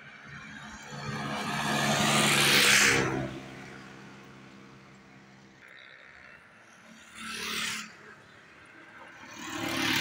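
Road vehicles passing by. The first builds up with an engine hum and a rush of tyre and wind noise, loudest between two and three seconds in, then fades. Two shorter pass-bys follow, one about seven seconds in and one near the end.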